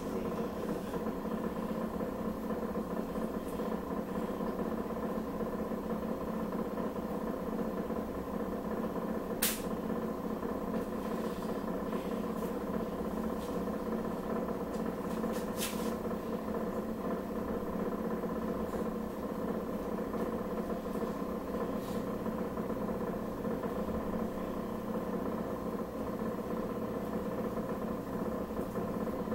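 Steady hum of a motor-driven fan running in a kitchen, holding one even pitch throughout, with two short sharp clicks about a third of the way in and about halfway through.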